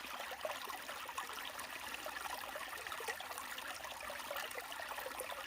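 Running water trickling steadily, like a small stream.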